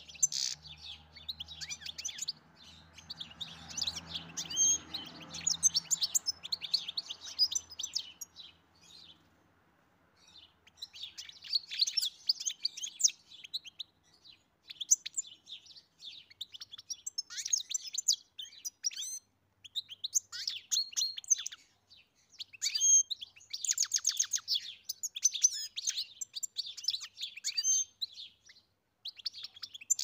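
European goldfinch singing: a fast, twittering song in long phrases of rapid chirps and trills, with a break of a couple of seconds about a third of the way in.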